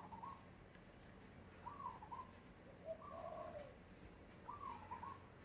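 A bird cooing softly: short, low, gliding two-part calls repeated about four times, a second or so apart.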